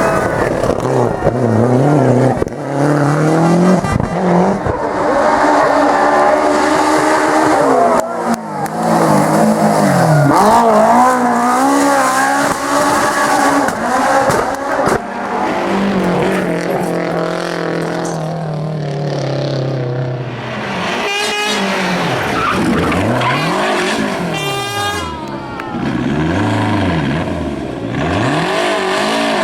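Rally car engines revving hard, the pitch climbing through each gear and dropping at every shift. In the later part an engine is revved up and down sharply several times in quick succession.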